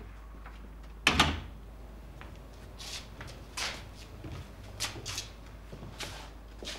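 A single loud thud about a second in, then several soft scuffs and rustles of people shifting about on the floor.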